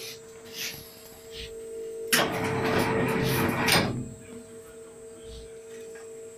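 Steady machine hum, with a harsh scraping noise lasting about two seconds in the middle that starts and stops abruptly.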